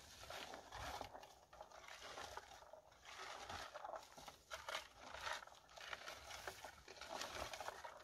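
A red plastic berry picker and gloved hands combing through bilberry bushes: faint, irregular rustling and scraping of leaves and twigs, with many small clicks.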